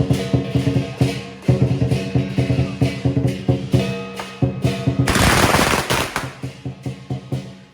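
Lion dance drumming, a rapid beat of drum strikes with ringing metal percussion. About five seconds in, a one-second burst of rapid crackling from firecrackers cuts through the drumming.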